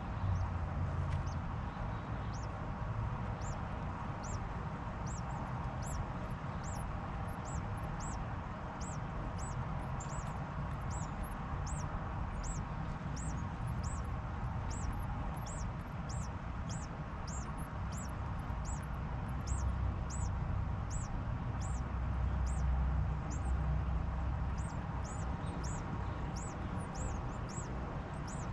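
A small bird gives short, very high, thin calls over and over, a little more than once a second, over a low rumble.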